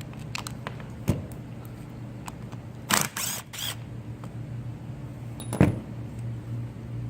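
Clicks, knocks and short scrapes of hand tools and parts being handled on a Stihl TS800 cut-off saw during a stop-switch replacement, with a loud knock about a second in, a cluster of scrapes around three seconds, and a sharp knock a little before six seconds, over a steady low hum.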